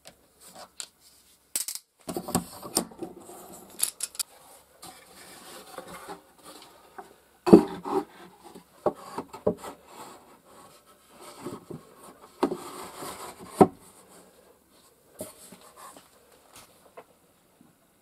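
Wooden shelf boards and clamps being handled and fitted together on a workbench: irregular knocks, clicks and wood-on-wood rubbing and scraping, with two sharper knocks, about seven and a half and thirteen and a half seconds in.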